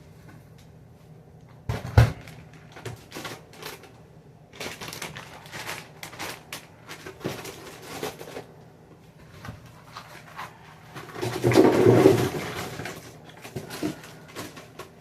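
Food packaging and plastic bags being handled, with a sharp knock about two seconds in and scattered clicks and rustles. Near the end comes a loud, low burp lasting about a second and a half, which she follows with "excuse me".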